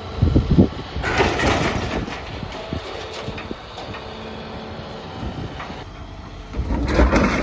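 Heavy machinery working, an excavator and a skid steer, with a steady mechanical rumble. A couple of heavy low thumps come right at the start, and a louder stretch of noise builds about a second before the end.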